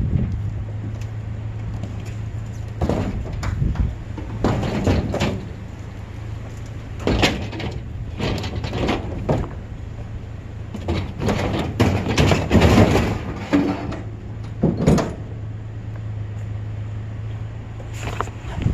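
Clunks, bangs and scrapes of sheet metal as a discarded clothes dryer is handled, over a vehicle engine idling steadily.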